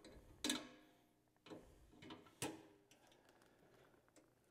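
Steel extension spring clinking and ringing as its hooks are set into the plow blade and push tube: three sharp metallic clinks about a second apart, the first the loudest.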